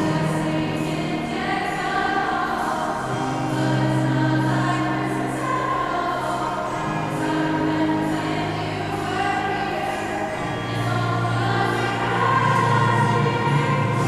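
High-school girls' choir singing a slow passage of long held notes in harmony over low sustained notes.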